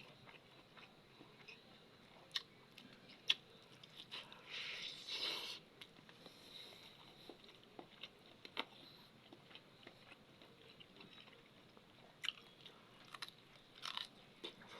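A person eating close to the microphone: bites and chewing, with sharp clicks and smacks scattered through and a longer noisy stretch about four seconds in.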